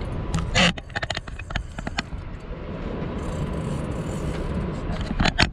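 Steady rush of wind and sea on a small open fishing boat, with scattered sharp clicks and knocks of fishing gear being handled. The loudest knock comes about half a second in, a quick run of clicks follows, and a few more come near the end.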